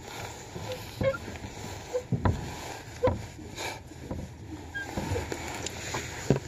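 A small boat being rowed: sharp knocks about once a second over a steady wash of water noise.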